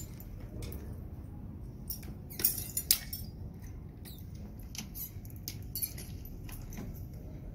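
Scrap compressor metal parts being handled, with scattered light metallic clinks, taps and small squeaks. A few louder clinks come about two and a half to three seconds in.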